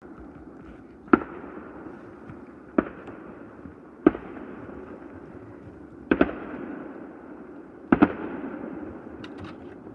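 Fireworks going off: a series of sharp bangs about every one and a half to two seconds, two of them in quick pairs, over a steady background of fainter fireworks. The loudest bang comes about a second in.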